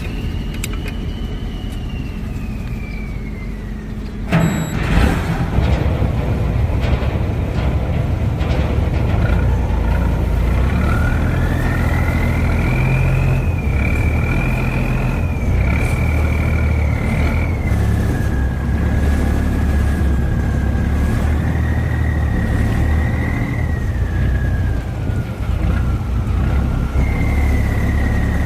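Boat engine running steadily, with a high whine above it that slowly rises and falls in pitch. About four seconds in the sound changes abruptly and grows louder.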